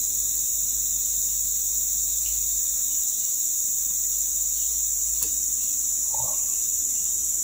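Steady, high-pitched drone of a rainforest insect chorus, unbroken throughout, with a faint click about five seconds in.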